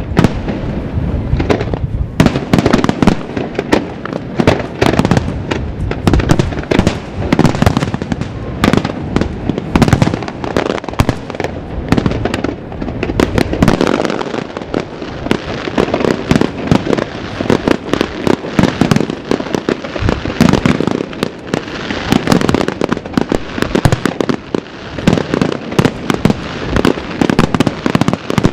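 Professional fireworks display: aerial shells bursting in a rapid, continuous barrage of loud bangs and crackles, many reports a second with no break.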